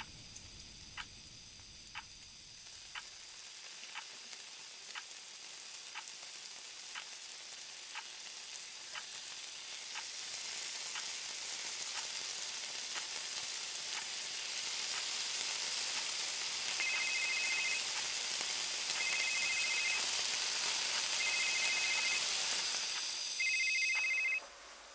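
An egg frying in a small pan, its sizzle swelling through the middle and cutting off suddenly near the end, over a clock's steady ticking about twice a second. About two-thirds of the way in, a phone rings four times in short two-tone bursts.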